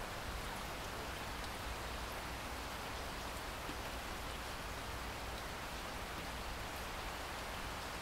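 Heavy rain falling steadily, drops splashing densely into standing water on a flat surface close by, with a low rumble under the even hiss.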